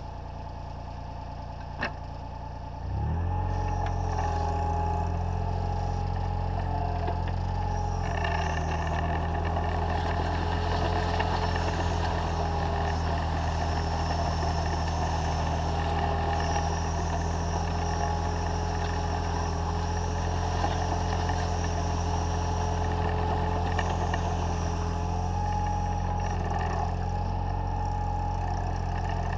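Takeuchi TB014 mini digger's diesel engine running. About three seconds in it revs up and then holds a steady note with a whine over it as the machine travels, with one sharp click shortly before.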